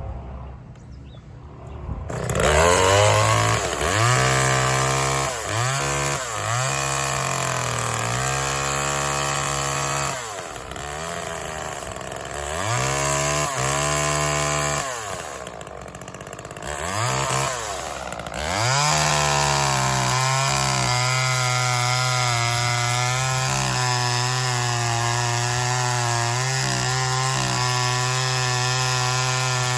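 Homelite chainsaw revving up and down in repeated bursts from about two seconds in, then held at a steady high speed for the last ten seconds as it cuts through pine wood.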